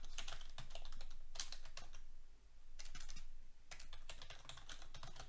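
Typing on a computer keyboard: quick, irregular key clicks, pausing briefly about two seconds in, as a file name is typed in.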